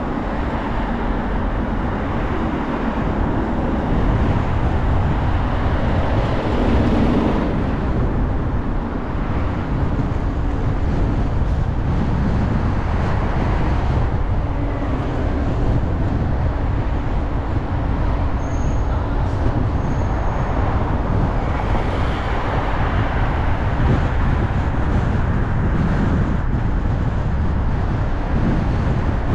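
Steady road and traffic noise from a car driving along a city street: a continuous rumble of tyres and engine, with other vehicles passing, among them a city bus about halfway through.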